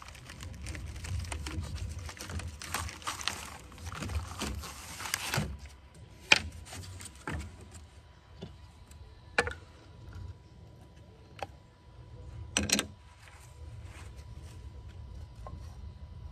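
Thin wooden slats sliding and rubbing against each other as they are shuffled on a stack, then several separate sharp wooden knocks as slats are set down.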